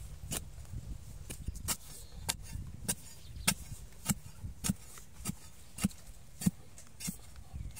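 Long metal digging bar stabbing into dry soil over and over, about a dozen evenly spaced strikes a little more than once a second.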